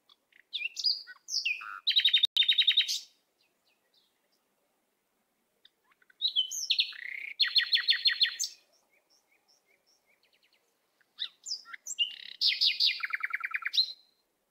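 A songbird singing three phrases, each a few quick notes running into a fast trill.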